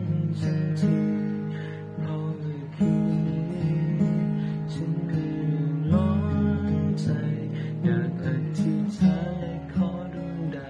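Acoustic guitar being played, a chord struck about every three seconds with picked notes ringing between.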